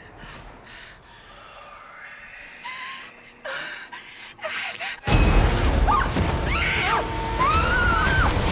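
Horror trailer sound: a few seconds of hushed, breathy gasps and sobs, then about five seconds in a sudden loud blast of scary music. High shrieking pitch glides run over a deep rumble.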